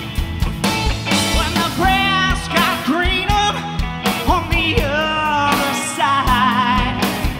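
Live rock band playing: a male lead vocalist sings over electric guitars, bass guitar and drums.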